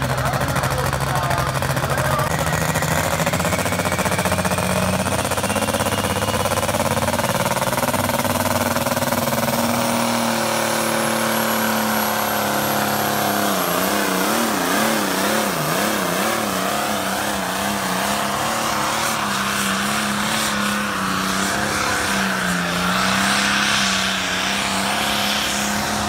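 Modified Farmall pulling tractor's engine at full throttle, dragging a weight-transfer sled. The pitch climbs steadily over the first ten seconds or so, wavers up and down for a few seconds about halfway through while the front wheels are off the ground, then holds high and steady.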